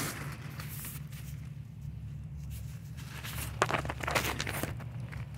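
Shuffling and crunching on gravel as someone crouches down beside a riding mower, with a few light clicks and knocks in the second half and a sharp click at the end.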